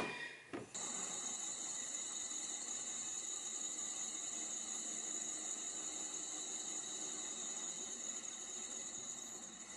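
A steady high-pitched hiss that starts abruptly about a second in and stays even, with no engine sound heard.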